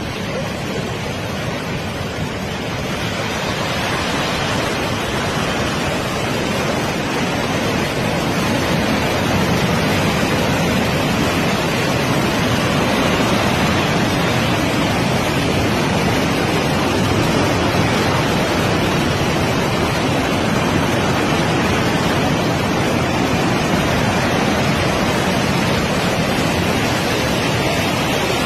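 Floodwater rushing through a street and pouring over stone steps: a steady, loud rush of fast-moving water that grows louder over the first few seconds.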